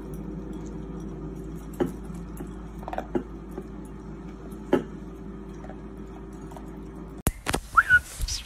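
Steady low hum with a few sharp clicks scattered through it. After a sudden cut near the end, a short high squeaky call glides up and then down.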